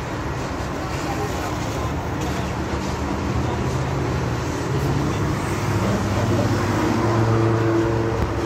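A motor vehicle's engine hum over a steady wash of traffic noise. The hum gets louder in the second half.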